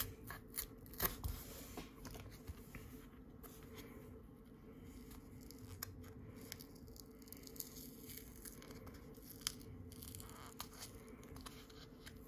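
A cardstock trading card being torn open by hand, its tear strip pulled and the layers peeled apart: faint crackling tears and scattered sharp ticks of paper, over a faint steady low hum.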